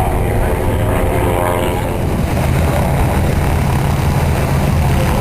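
Piston-engined propeller aircraft running, a steady low drone that holds at an even level.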